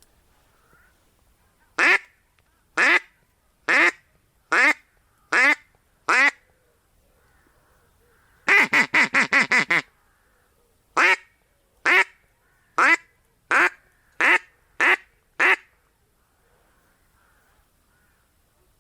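Hen-mallard quacking, the calling sequence used to lure drakes in spring: six spaced quacks, a quick run of about eight, then seven more coming faster.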